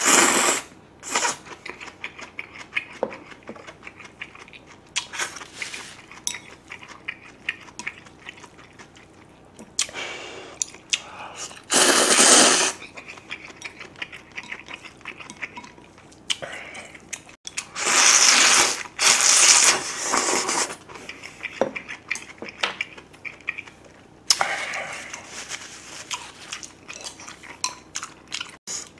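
Close-up eating sounds: noodles and broth slurped in repeated noisy bursts, the loudest about twelve seconds in and again from about eighteen to twenty seconds, with chewing and small clicks between them.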